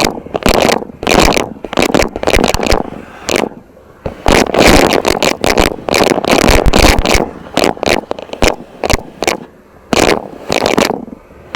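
Vacuum cleaner at work: loud, irregular crackling and scraping bursts with short breaks between them.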